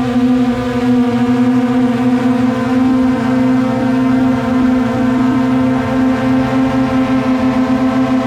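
DJI Mavic quadcopter's propellers and motors running with a steady, even whine, with a slight regular pulsing in loudness near the end.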